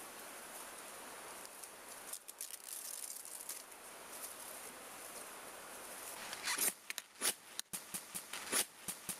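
Dry grass tinder bundle rustling as it is handled and shaped, then, from about six and a half seconds in, several sharp scrapes of a ferro rod struck over the tinder to throw sparks and light it.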